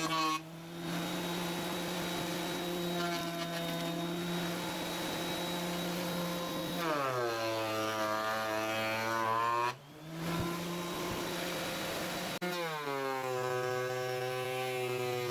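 Maksiwa PDJ310 thickness planer running with a steady pitched motor whine. About seven seconds in and again about twelve and a half seconds in, the pitch drops sharply and stays lower as the cutter head takes a board under load. The sound dips briefly just before ten seconds, then comes back at the higher pitch.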